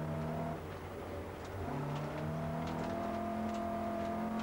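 Opel Ascona A rally car's four-cylinder engine heard from inside the cabin, pulling hard, easing off briefly about half a second in, then pulling again with the revs climbing slowly.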